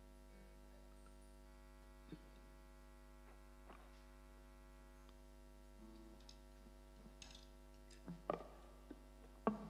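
Steady mains hum from an amplified stage sound system, with scattered faint clicks and knocks, the two loudest near the end, and a brief soft tone about six seconds in.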